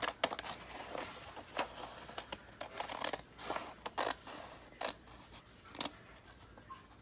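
Scissors cutting through a few sheets of paper at a time, a series of separate snips about a second apart with some paper rustle between them.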